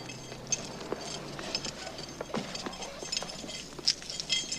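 Small hard objects, metal and glass, clinking and rattling in an irregular string of sharp clinks as they are rummaged through and handled, with a few louder clinks near the end.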